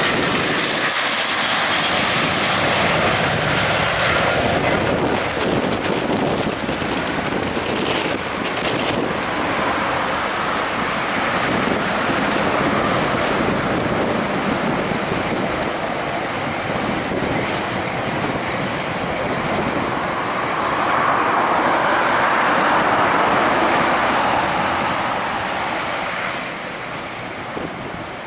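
Airbus A320's twin IAE V2500 jet engines at takeoff power, a high whine over the steady roar that fades within the first few seconds as the airliner climbs away. The roar continues as a broad rumble mixed with wind buffeting the microphone, dropping off near the end.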